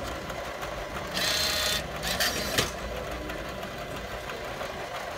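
Self-checkout bill acceptor drawing in a banknote: a short motorised whir about a second in, then a sharp click, over a steady background hum.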